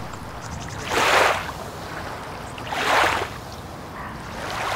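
Water washing against the shore in swells of rushing noise about every two seconds, over a low steady rumble.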